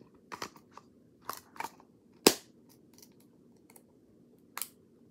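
Handling noise from the money box: a handful of short, sharp clicks and knocks, the loudest a little over two seconds in.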